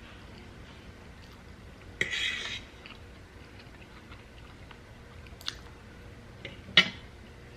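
Quiet eating sounds at a table: a short mouth noise of chewing about two seconds in, then a few light clicks of cutlery against a dish, the sharpest shortly before the end.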